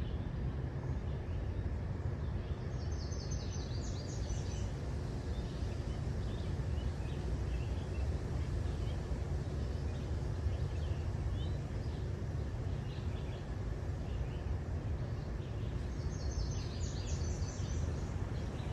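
Steady low rumble of a car driving slowly, with birds chirping outside; a quick run of high bird notes about three seconds in and again near the end.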